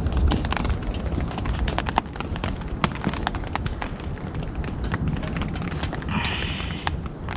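Small wood fire of damp twigs and fatwood crackling in a folding metal Honey stove with Hive extension: a steady run of sharp pops and snaps, with a brief rustle about six seconds in as more sticks are fed in.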